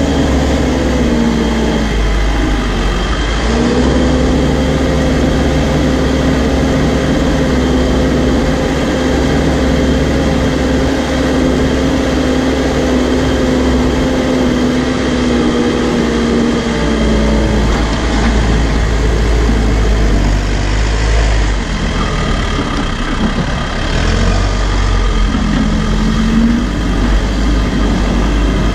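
New Holland B95 backhoe loader's diesel engine running under load as the machine drives with a loaded bucket and pushes dirt. Its engine note dips about two seconds in, holds steady, then drops off around two-thirds of the way through.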